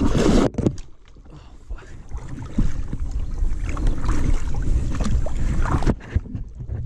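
Knocks, rubbing and water sloshing around a plastic sit-on kayak as the paddle and rod are handled. A loud rush of noise opens it, it goes quieter about a second in, and it picks up again with many small knocks and a low rumble until near the end.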